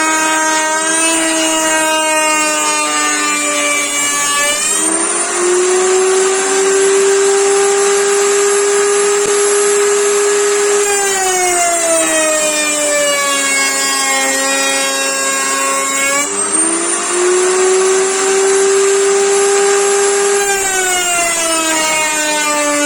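Electric power tool motor whining loudly, its pitch sagging as it is loaded in a cut and climbing back to a steady free-running whine. The cycle repeats about every five to six seconds: it bogs down at the start, runs free about five seconds in, loads again near eleven seconds, runs free again from about sixteen seconds and loads again near the end.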